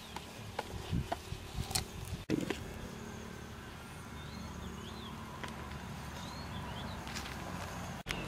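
Outdoor background: a steady low hum with a few faint high chirps, and a handful of light clicks and soft knocks in the first two seconds.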